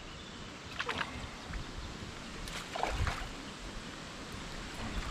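River current running and lapping around a kayak's hull, with a few light knocks about one and three seconds in.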